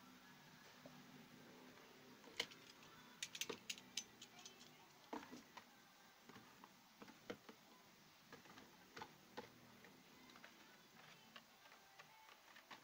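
Near silence: room tone with scattered faint clicks and light taps, several bunched together about three to four seconds in.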